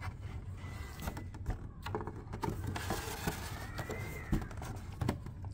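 Cardboard model-kit box being handled with its flaps held open: light taps, knocks and rustles of the card under the fingers. A faint thin squeak rises and falls around the middle, over a steady low hum.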